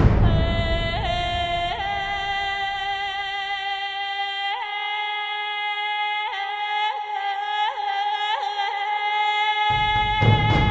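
Background music of long held melodic notes, each sliding in with a small scoop in pitch, over a low accompaniment that drops out about halfway and comes back near the end.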